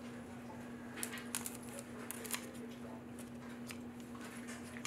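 Scissors cutting open the top of a foil trading card pack: a few faint snips and crinkles over a steady low hum.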